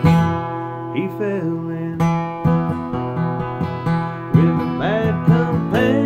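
Acoustic guitar strummed in a slow country-folk rhythm, with open chords ringing. A few short sliding notes come in over it about a second in and again near the end.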